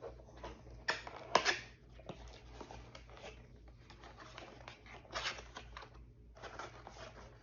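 Packaging being handled and rustled as an opened shipping package is unpacked, with scattered clicks and a sharp knock about a second and a half in.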